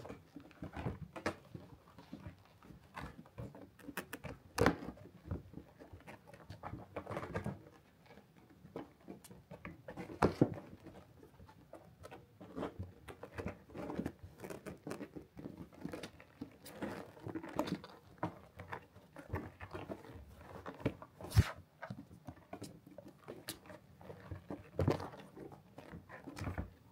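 Cats scrabbling and tussling on a felt cat bed: irregular soft thumps, rustles and scratches of paws and bodies on felt, with a few sharper knocks, one of them the loudest about two-thirds of the way in.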